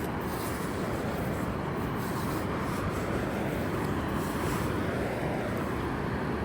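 Steady, even rush of ocean surf breaking on the beach, a constant noise with no distinct events.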